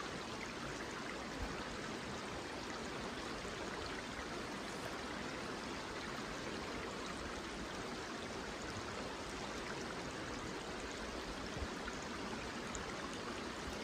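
River water flowing steadily, an even rushing, with a faint knock about a second and a half in and another near the end.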